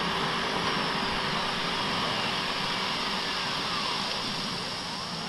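Steady rushing roar, with a faint whistle over it that glides slowly down in pitch and starts rising again near the end.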